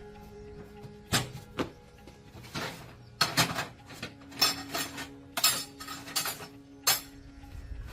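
Metal tools and steel gearbox parts clinking and clanking irregularly, about a dozen sharp knocks, over faint background music.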